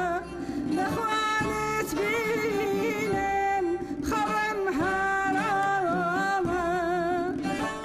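A woman singing a Kurdish folk melody in long, ornamented held notes with a wavering vibrato, pausing briefly for breath about a second in and again about four seconds in, with instruments faint beneath.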